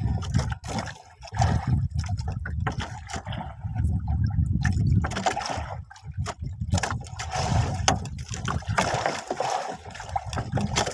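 Water sloshing and lapping around a small boat, in uneven surges, with scattered sharp knocks and clicks from handling gear on board.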